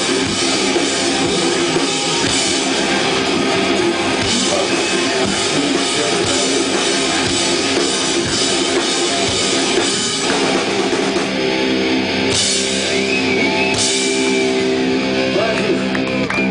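A live rock band plays loudly through the PA, heard from the audience: distorted electric guitar and drum kit, with no vocals. About ten seconds in the drumming thins out and held chords ring on.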